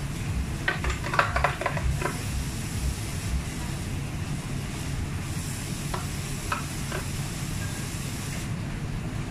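Metal bar spoon clinking and scraping against a jug and glass as frozen slush is spooned onto a layered cocktail: a quick run of light clinks about a second in, a few more later, over a steady low hum.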